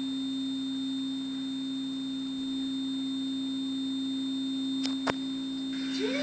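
A steady, single low electronic tone from the TV's video playback, with two short clicks about five seconds in.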